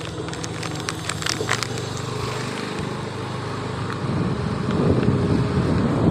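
Motor scooter engine running steadily as it rides along, with a few clicks in the first second or so. Wind rush on the microphone grows louder from about four seconds in.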